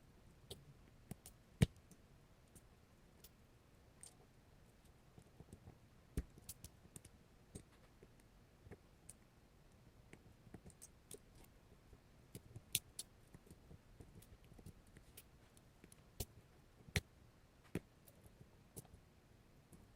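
Scattered faint clicks and light metallic taps, irregular and a few sharper than the rest, from small steel lock-pick tools and a padlock being handled.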